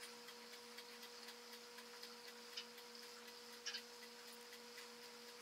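Near silence: room tone with a faint steady hum and a faint, even ticking throughout, plus a couple of tiny taps around the middle.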